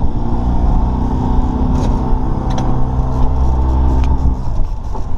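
Boat motor running steadily, dropping away about four and a half seconds in.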